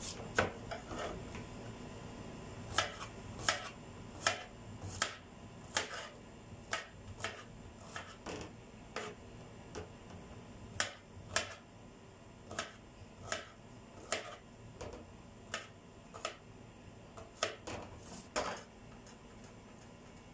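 Kitchen knife chopping red onion on a cutting board: sharp, irregular knocks of the blade on the board, roughly one or two a second, stopping a couple of seconds before the end.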